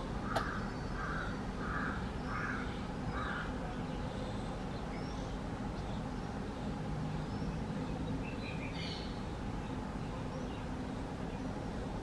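A bird calls five times in a row, evenly spaced about two-thirds of a second apart, just after a sharp click; fainter, higher bird calls come and go through the rest, with a small cluster near the end, over a steady background noise.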